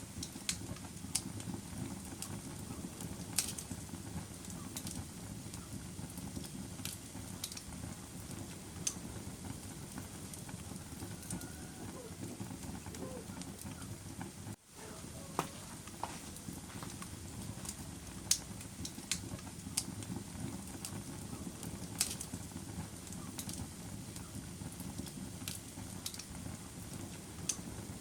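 Wood fire crackling in a fireplace: a steady low rush of flames with sharp pops and crackles at irregular intervals. The sound dips out for an instant about halfway through.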